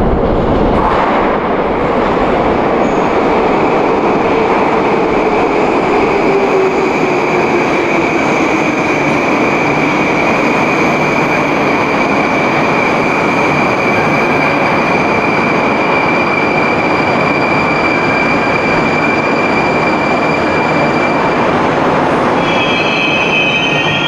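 Moscow Metro train pulling into the station: loud, steady rumble of wheels on rail, with a motor whine that falls in pitch as the train slows over the first several seconds. A high, steady wheel squeal runs through most of it and fades near the end.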